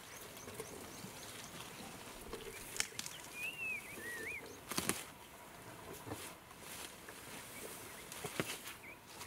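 Elephant feeding close by: a few sharp snaps and cracks of vegetation being broken and torn, over soft rustling. A bird whistles two wavy notes about three to four seconds in.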